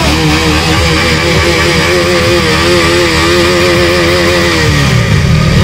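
Sport motorcycle engine revved and held high, its pitch wavering up and down about three times a second before easing off near the end, over a steady low rumble.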